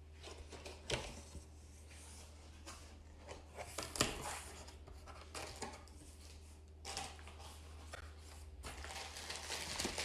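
Cardboard and plastic packaging being opened and handled: crinkling and tearing, with scattered sharp knocks, the loudest about four seconds in.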